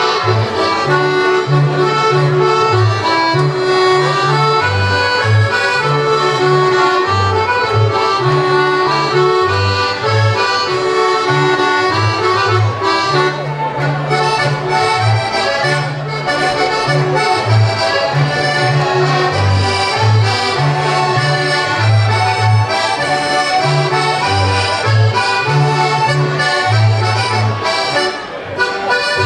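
Traditional folk dance music led by an accordion, with a bass alternating between two low notes in a steady dance rhythm under the melody.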